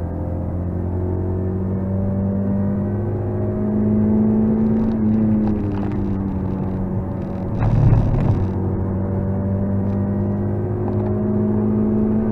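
Mazda MX-5 NC's 2.0-litre four-cylinder engine with an aftermarket exhaust, heard from inside the cabin under track driving: the revs climb, fall away as the car slows for a corner, then climb again. About two-thirds of the way through there is a brief, loud, rough burst of noise.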